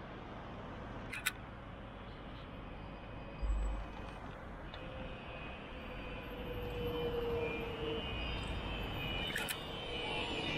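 Street traffic noise as a Translohr rubber-tyred guided tram approaches, growing louder toward the end with a rising high whine from the tram's motors. A sharp click comes about a second in and a brief low thump a few seconds later.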